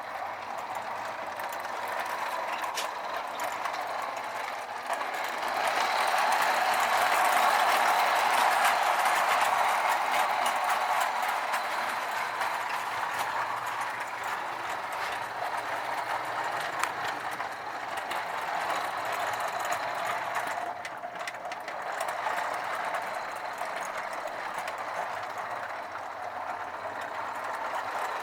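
Marx electric toy train running on its track: a steady mechanical whir of the motor and gears with wheels running over the rails. It grows louder about five seconds in as the train comes near, then fades back to a steady run.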